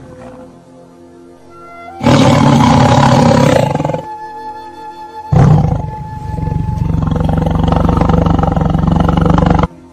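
Big-cat roars over background music: a loud roar about two seconds in lasting under two seconds, then a longer roar from about five seconds in that cuts off abruptly near the end.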